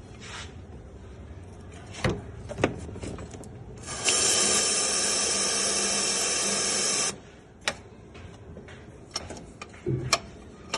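An aerosol can of WD-40-type cleaner sprayed in one steady hissing burst of about three seconds onto the clutch fork arm, to flush out dirt. There are a few light clicks and taps before and after the spray.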